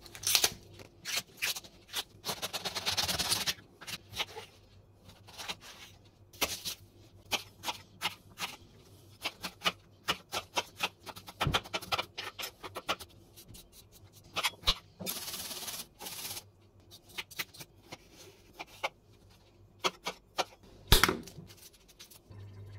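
Irregular clicks and knocks of kitchen utensils and food being handled, with two short spells of rustling hiss and one sharper knock near the end.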